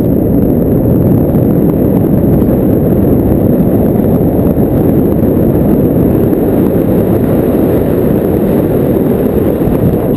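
Loud, steady wind rumble on a pole-mounted camera's microphone, from the airflow of a tandem paraglider in flight.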